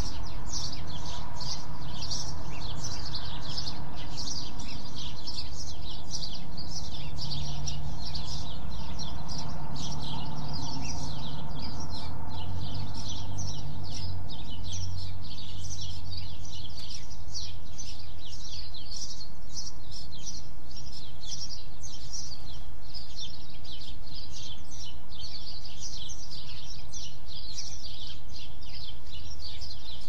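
Birds chirping in a dense chorus of rapid, overlapping short chirps, over a low hum of light traffic that swells a little from about seven to fourteen seconds in.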